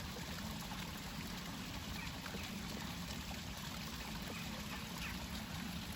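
A small waterfall in an aviary pool, water trickling and splashing steadily.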